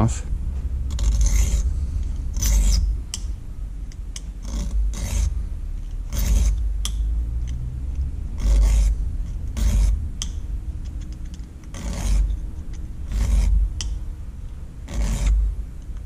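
Small hand file drawn across the teeth of a Victorinox Hiker Swiss Army knife's saw blade clamped in a vise, sharpening the teeth: a dozen or so short rasping strokes, irregularly spaced about a second apart.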